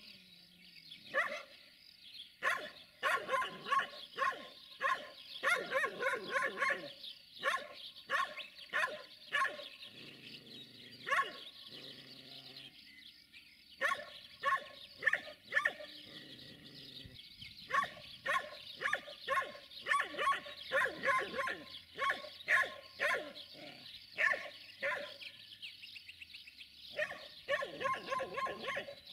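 A dog barking repeatedly in quick runs of short barks, with brief pauses between the runs.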